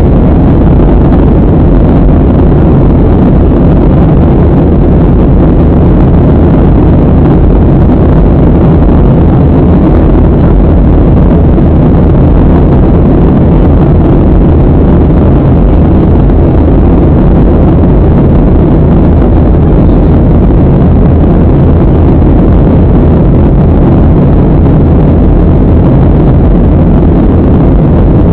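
Steady cabin noise inside a Southwest Airlines Boeing 737 in flight: jet engine and airflow noise, an even rumble heaviest in the low end that does not change.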